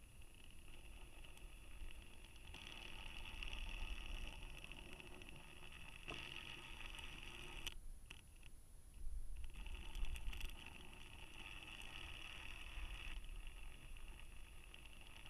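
Faint whir of a small DC motor, the spin-control motor turning the camera against the payload's spin, running in stretches of a few seconds and stopping briefly about halfway through. Low rumble underneath, with a few knocks in the middle.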